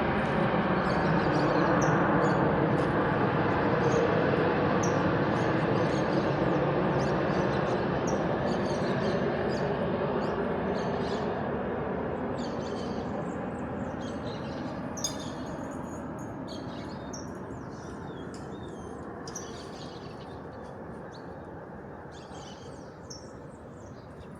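Aircraft arriving to land, its engine noise passing and slowly fading away, while birds keep chirping and become clearer as the plane recedes.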